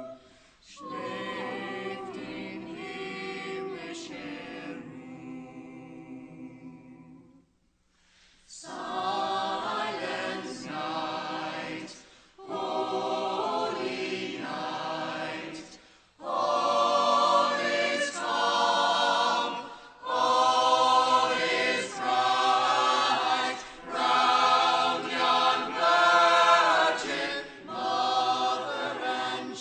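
A group of costumed carolers singing together in chorus, unaccompanied, in phrases with short breaths between them. The singing stops briefly about seven seconds in, then comes back louder.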